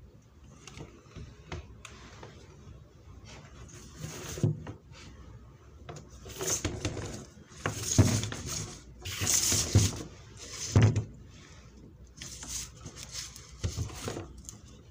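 Handling noise from a homemade LED light panel built from a metal-framed computer LCD screen as it is moved and set on a table: irregular knocks, clunks and rustling, loudest a little past the middle.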